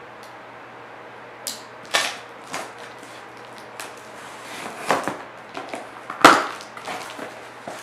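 Packing tape on a cardboard shipping box being cut and scraped open with a small blade: a run of irregular clicks, scratches and crackles, with the loudest snap about six seconds in.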